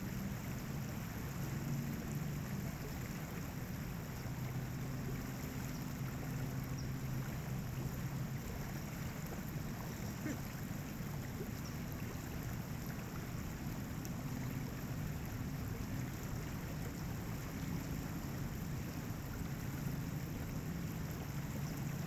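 Steady rush of river water running over rocks, an even noise with a low hum underneath.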